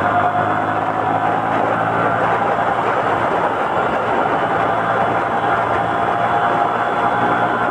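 Motorcycle engine running at a steady pace while riding, mixed with a steady rushing of road and wind noise.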